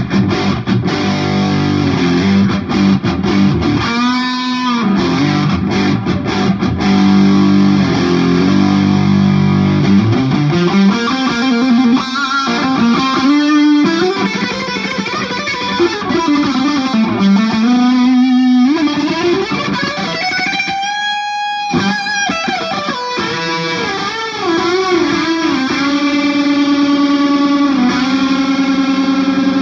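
Knaggs Kenai electric guitar played through an overdriven Marshall JCM 2000 valve amp. It opens with heavy distorted rhythm chords for about ten seconds, then moves to a lead line full of string bends and wide vibrato on sustained notes.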